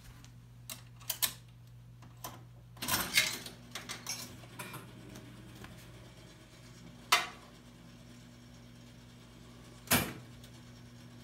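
Wurlitzer 850 Peacock jukebox: mechanical clicks and clunks as its front selector controls are pressed. There is a clattering run about three seconds in and single sharp clicks at about seven and ten seconds, over a steady low hum.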